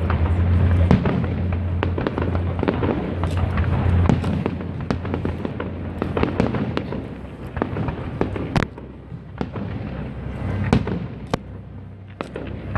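Fireworks display going off: a dense stream of bursting shells and crackles, with a single sharper bang a little past halfway, after which the bursts come more sparsely.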